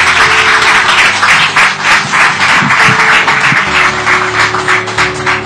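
Audience applauding, dense at first and thinning into scattered claps toward the end, over soft background music with held notes.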